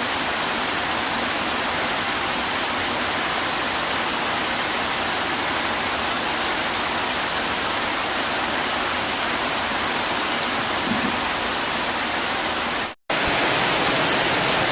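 Heavy rain pouring down steadily, an even hiss with no let-up; it cuts out abruptly for a split second about 13 seconds in, then carries on.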